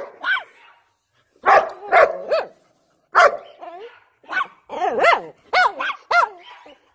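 A dog barking over and over in short, pitched barks, with a couple of pauses at first and the barks coming faster in the second half.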